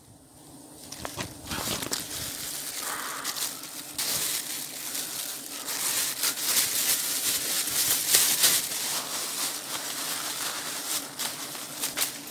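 Leaves and twigs rustling and crackling as tree branches are gripped and pushed through by a climber, a steady rustle with many small snaps that builds up over the first couple of seconds.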